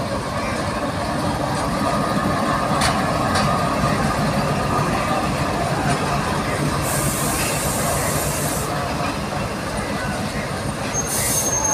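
Diesel locomotive engine running steadily as it rolls slowly past hauling passenger coaches. Two sharp clicks come about three seconds in, and a hiss lasts about two seconds midway.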